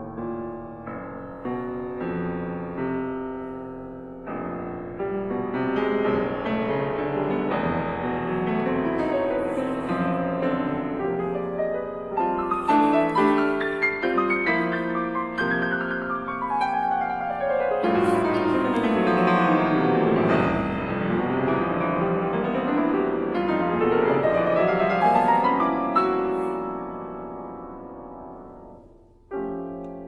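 Grand piano playing dense contemporary concert music, with a long run sweeping down the keyboard and back up midway. The sound dies away near the end before fresh chords start.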